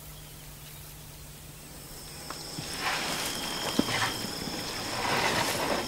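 Rustling and crackling in several waves from about two and a half seconds in, over a steady high-pitched whine.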